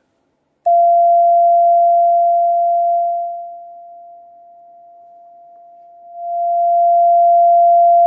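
Vectronics VEC-254 code practice oscillator sounding one steady beep while the straight key is held down. It starts just under a second in and is loud, fades down about three seconds in, stays low for a couple of seconds, then rises back to full as the volume knob is turned back up.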